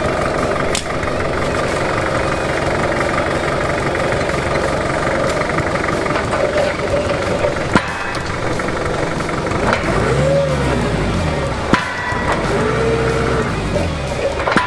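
Forklift engine running steadily, then revved up and back down twice from about ten seconds in. Two sharp metallic knocks, the first around eight seconds in and the second around twelve.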